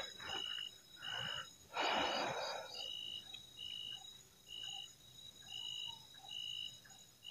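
A high, even whistling call repeating about once a second, over a faint steady high hum. Rustling bursts come about one and two seconds in, the second the loudest.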